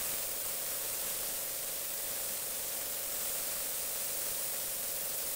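Gravity-feed airbrush spraying: a steady hiss of compressed air through the nozzle.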